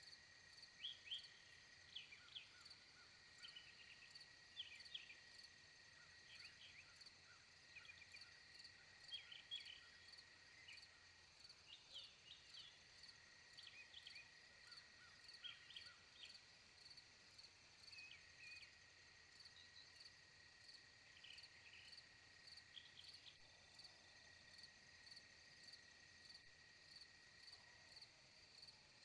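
Faint outdoor dawn ambience: a steady, pulsing, insect-like trill runs throughout. Over it come scattered short bird chirps and calls, which stop about three-quarters of the way in.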